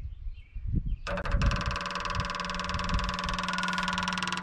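Electric fuel pump switching on about a second in and running with a steady buzz as it tries to draw fuel up and prime the line.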